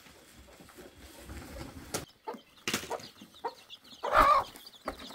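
A mother hen with chicks giving a loud squawking cluck about four seconds in as she is held and lifted from her box, after a few faint knocks and rustles of handling.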